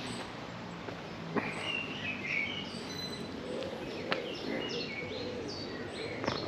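Birds chirping over steady outdoor background noise: short, quick falling notes, a few at first and then repeating about two or three a second, with an odd sharp click.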